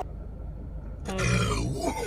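A low-pitched, drawn-out burp about a second in, lasting under a second, brought up by gulping carbonated Sprite.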